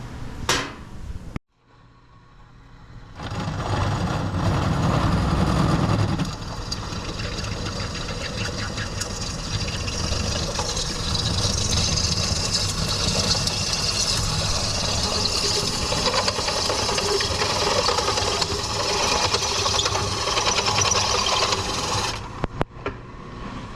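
Electric drill boring into a stainless steel intake pipe, the motor running steadily under load with a high grinding from the bit cutting the metal. It starts a few seconds in and stops shortly before the end.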